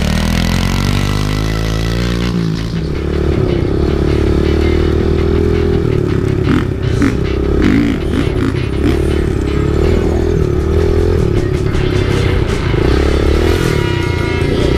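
Kawasaki KLX110 dirt bike's small single-cylinder four-stroke engine being ridden, revving up with a rising pitch over the first two seconds, then holding a wavering, fairly steady note. A few clattering knocks around the middle.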